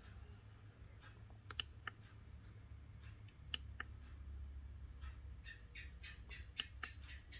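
Faint clicks of the push buttons on a Caterpillar 320D excavator monitor's keypad as they are pressed one at a time to step through its menus, with a quicker run of faint ticks near the end.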